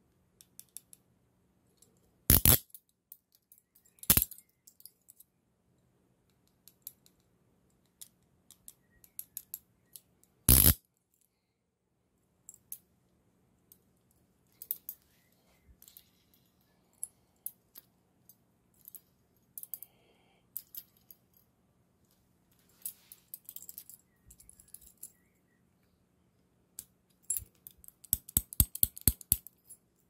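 CTS-Thompson 1010C chain-link handcuffs being handled: scattered ratchet clicks and small metal clinks, broken by three loud, sharp clacks. Near the end comes a quick run of ratchet clicks as a bow is worked through the cheek plates.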